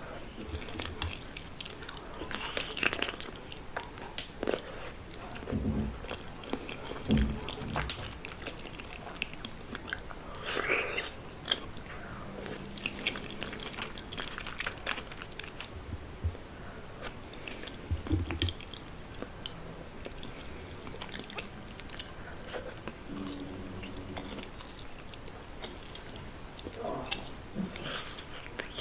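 A person eating, with repeated bites and chewing and scattered crunchy crackles at an irregular pace.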